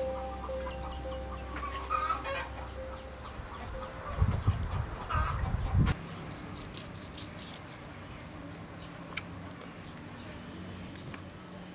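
Chickens clucking in the background. About four seconds in comes a loud two-second burst of low thumps and rumbling, and a steady low drone fades out before it.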